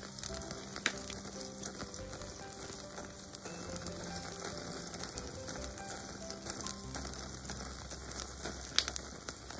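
Wagyu beef marrow bones sizzling on a wire mesh grill over charcoal, with scattered small crackles and a sharper pop near the end.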